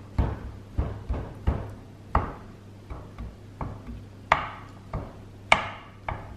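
Fork jabbing repeatedly into a baked sponge cake to poke holes for the three-milk soak, each stab a short sharp tap as the tines hit the baking dish beneath. About a dozen taps, roughly one every two-thirds of a second.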